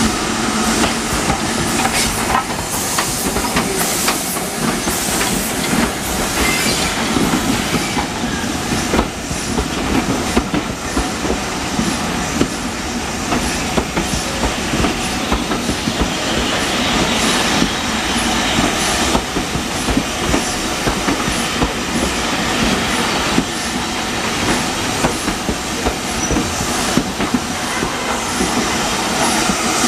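Heritage railway passenger carriages rolling past close by: a steady, loud run of wheels on rail.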